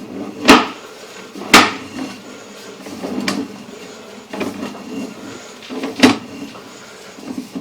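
Sewer inspection camera and its push cable being pulled back through the drain line, giving sharp knocks and clunks: three loud ones about half a second, a second and a half and six seconds in, with a few softer ones between.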